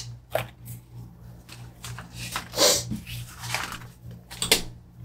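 Sticker paper being handled and laid down on a wooden table: a few short rustles and slides, the longest about halfway through, over a steady low hum.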